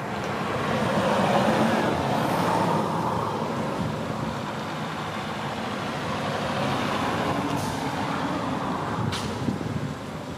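Steady engine noise of a large road vehicle such as a truck or bus, swelling about a second in and then holding steady, with two brief sharp clicks near the end.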